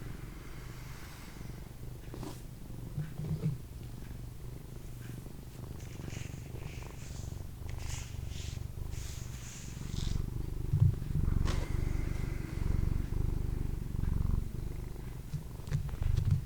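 A domestic cat purring steadily close by, the purr growing louder from about ten seconds in, with a few soft rustles partway through.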